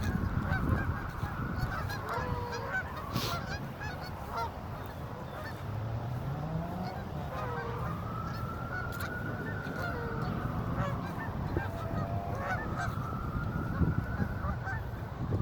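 A flock of geese honking: many short calls overlap, one after another, without a break.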